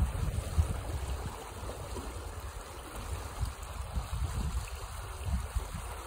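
Fast, foaming water rushing along an earthen channel, a steady rush. Uneven gusts of wind rumble on the microphone over it, strongest in about the first second.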